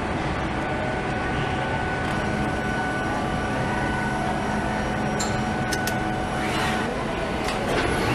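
Assembly-line factory ambience: a steady machinery hum with a constant whine, and a few sharp clicks about five to six seconds in.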